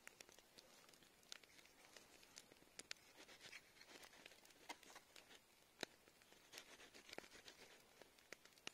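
Faint, scattered soft clicks and ticks of a large knife slicing a tomato held in the hand, with pieces dropping onto a metal plate.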